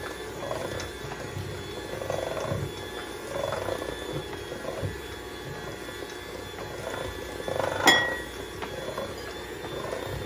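Electric hand mixer running steadily, its beaters churning pandan waffle batter in a stainless steel bowl with a swish that swells about once a second. Near the end a beater clinks sharply once against the bowl.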